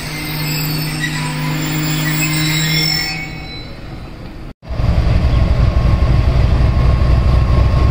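Passenger train wheels squealing on the rails with steady tones that fade away. After a sudden cut about halfway through, a louder low rumble of a train running close by takes over.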